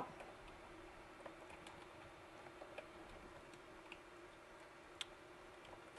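Near silence with a few faint, short plastic clicks, the sharpest about five seconds in, as small wire plug connectors are pulled off a 3D printer control board. A faint steady hum runs underneath.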